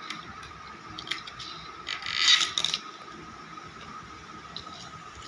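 Skin of a ripe palmyra palm fruit being peeled off by hand: scattered small clicks and crackles, with a louder rasping tear about two seconds in.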